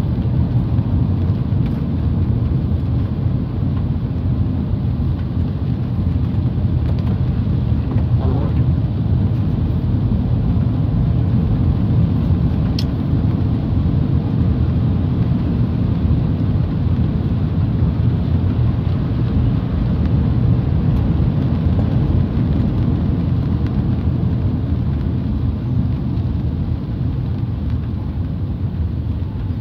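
Steady low rumble of a car's engine and tyres on a wet road, heard from inside the cabin. A single brief tick about 13 seconds in.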